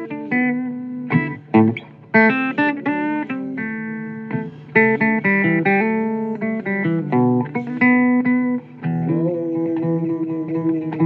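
Instrumental guitar break in a blues recording: a quick run of plucked single notes and chords, with some notes bent upward in pitch.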